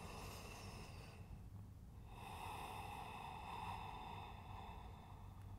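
A person's faint, slow breathing: a short breath at the start, then a long exhale through the mouth beginning about two seconds in and lasting nearly three seconds, a deliberate relaxing breath.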